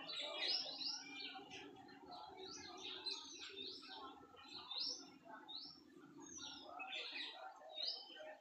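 Small birds chirping: many short, quick rising chirps, several a second and overlapping, over a steady low background hum.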